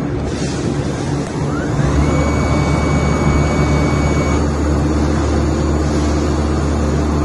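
Linear stator flyer coil winding machine winding a coil. The flyer spins up with a rising whine about two seconds in, then runs at a steady pitch with a low hum, over steady production-line machine noise.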